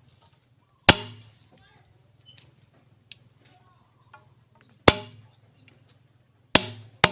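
Four sharp, loud knocks, each with a short ringing tail: one about a second in, one near five seconds, and two close together near the end.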